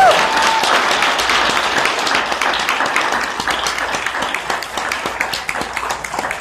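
A crowd applauding. The dense clapping thins out gradually into scattered separate claps.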